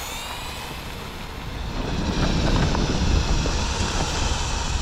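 High-pitched electric motor whine of a motorized LEGO Technic motorcycle driving its rear wheel, held fairly steady as the bike runs along. A low rumble swells about two seconds in and stays to the end.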